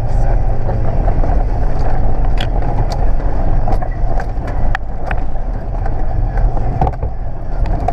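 Toyota LandCruiser driving slowly along a rough four-wheel-drive track: a steady low engine drone with scattered sharp clicks and knocks.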